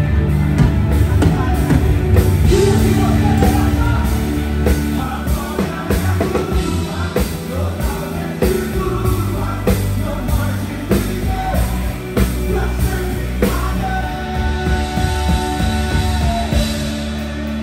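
Live band playing loudly on stage: a drum kit keeps a steady beat under keyboard chords and a singer's voice, with no break in the music.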